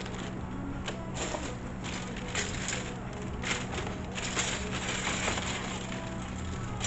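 Plastic model-kit parts being handled, with irregular rustling and crackling and a few light clicks.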